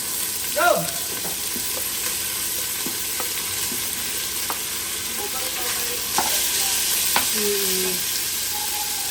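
Food sizzling steadily in a hot pan, with scattered clicks of a utensil stirring against it. A brief pitched sound stands out about two-thirds of a second in.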